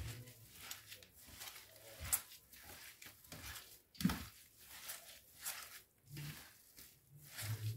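Hands kneading raw minced meat mixed with onion, parsley and spices, making soft, irregular squelches about every half second to second.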